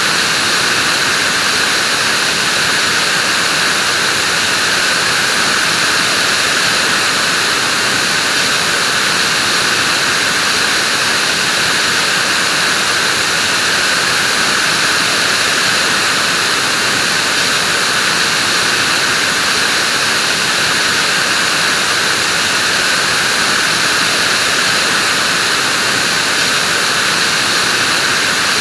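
Vacuum cleaner running steadily: a loud, even rushing hiss with a constant high motor whine.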